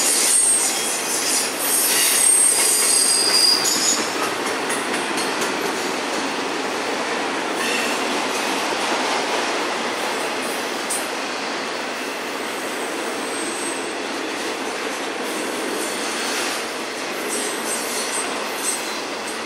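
Autorack freight cars rolling past, a steady noise of steel wheels on rail. Thin, high-pitched wheel squeal rings out over it in the first few seconds and again near the end.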